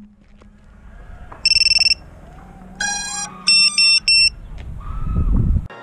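Electronic beeps from the landed quad: a fast pulsing high beep, then a tone that steps in pitch, then three short beeps. A low rumble swells near the end.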